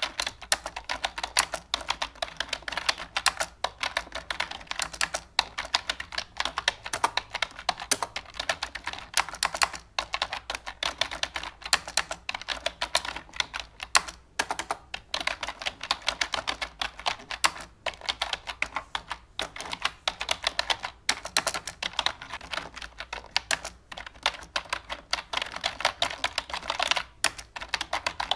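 Fast, continuous keyboard typing: many irregular clicks a second, with only a few brief pauses.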